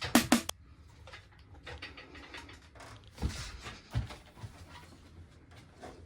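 Faint scattered clicks, light knocks and rustling, as of things being handled, after the music stops about half a second in; two slightly louder knocks come about three and four seconds in.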